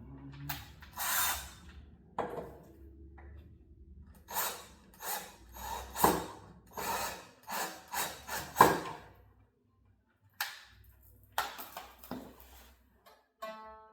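A series of short scraping and rubbing noises from a plucked string instrument being handled while a string is restrung, then a few plucked string notes near the end.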